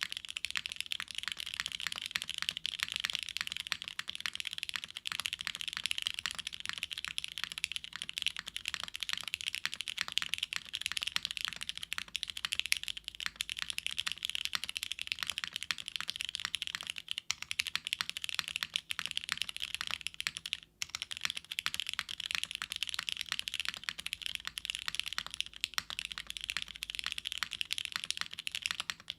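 Fast, continuous typing on a gasket-mounted mechanical keyboard with an aluminum plate, lubed Cherry MX2A Black linear switches and GMK keycaps. It is a dense clatter of keystrokes with a brief pause about twenty seconds in.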